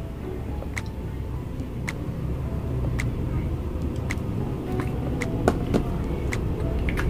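Steady low rumble of background noise with a faint tick about once a second.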